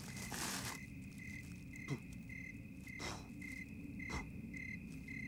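Crickets chirping steadily, about three chirps a second, over a low rumble, with a few brief whooshing noises about half a second, three seconds and four seconds in.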